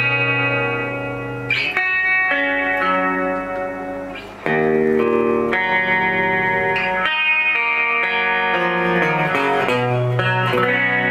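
Fernandes Revolver Pro electric guitar played through a Marshall JMP-1 preamp with overdrive. Single notes are held at full level for one to four seconds without fading, as the guitar's built-in Fernandes Sustainer keeps them ringing, and the pitch moves to a new note every second or two.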